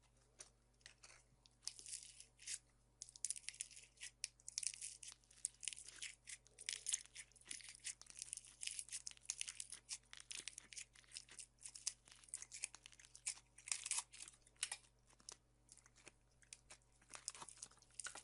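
Foamy, sponge-like slime being squeezed and pressed by hand, giving dense crackling and crunching, many sharp clicks a second.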